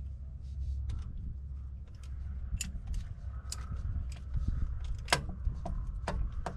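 Sharp metallic clicks of a socket wrench on a long extension working a starter mounting bolt. The clicks are few and irregular at first and come closer together near the end, over a steady low rumble.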